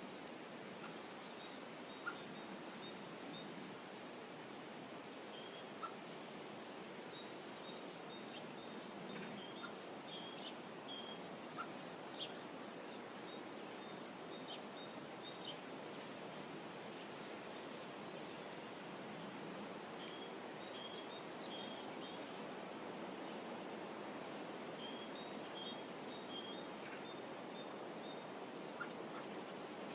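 Songbirds chirping in short, repeated high phrases every few seconds over a steady soft hiss of calm water rippling along the shore. A few faint clicks come and go.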